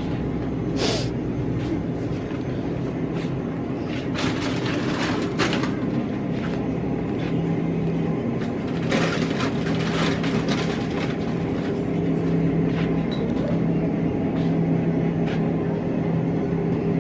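Steady low hum of a grocery store's refrigerated display cases and ventilation, with a few brief rustles and clicks of goods being handled.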